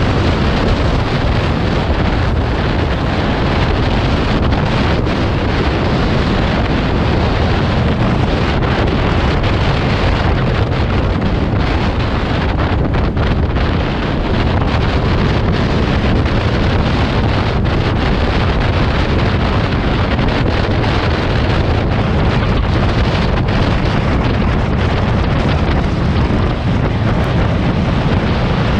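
Loud, steady wind buffeting the microphone of a moving vehicle, with road and vehicle noise underneath.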